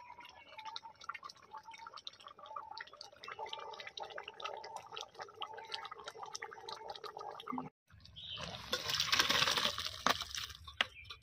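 Thick chicken curry bubbling and popping as it boils in a karahi. After a short break about eight seconds in, a louder rush of noise as the curry is poured out of the karahi into an aluminium pot.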